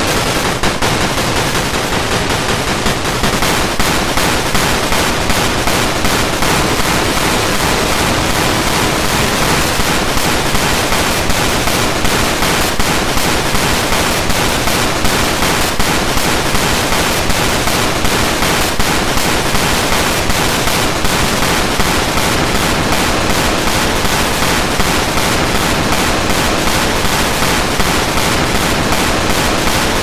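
Loud, heavily distorted audio from a layered remix of a Japanese emergency-alarm video: many stacked copies smear into a steady wall of harsh noise with a fast, dense crackle and no clear alarm tone.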